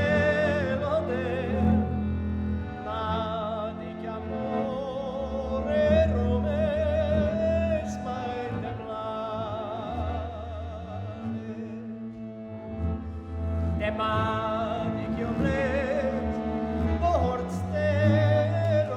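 A man singing a Romani-language folk song from Kalotaszeg with strong vibrato, accompanied by brácsa chords and a double bass.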